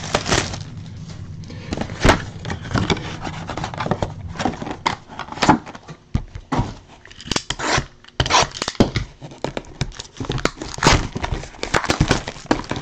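Plastic wrapping on baseball card packs and a shrink-wrapped card box crinkling and crackling as they are handled, with irregular light knocks of cardboard against the table.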